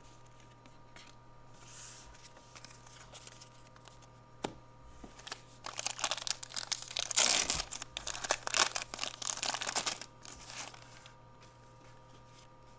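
A trading card pack wrapper being torn open and crinkled by hand: a run of crackling tears and crinkles lasting about four seconds, starting around the middle, with a short last crinkle after it and only light handling before.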